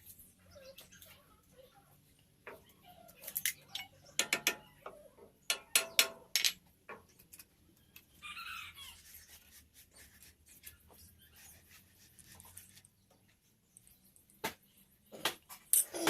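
Irregular sharp taps and knocks, in clusters from about three to six seconds in and again near the end, over a faint low hum.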